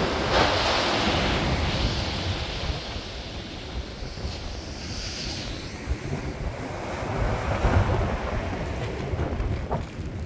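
Storm surf breaking and washing in, mixed with gusting wind buffeting the microphone. It is loudest at the start, eases off, then surges again about eight seconds in.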